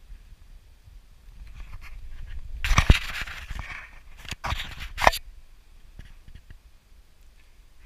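Close rustling and scraping as a dog is petted and moves about on grass. There is a burst of noise about three seconds in, then a few sharp flaps or knocks a second and a half later.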